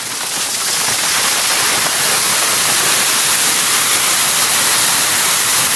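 Waterfall rushing, a steady, even noise of falling water that grows louder over about the first two seconds and then holds.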